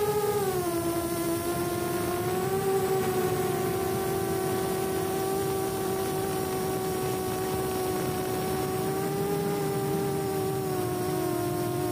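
Micro quadcopter's four RCX NK1306 4000KV brushless motors spinning HQ 4x2.5 props, a steady whining buzz in flight; the pitch drops slightly about half a second in, then holds level with small wavers as the throttle shifts.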